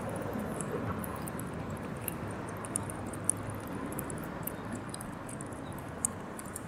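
Several cats lapping milk from a plastic bowl: an irregular run of small, quick wet clicks over steady low background noise.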